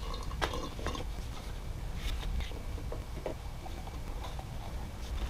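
Scattered light clicks and knocks from handling a fluid transfer pump and its hose fittings while new automatic transmission fluid is pumped in, over a low steady hum.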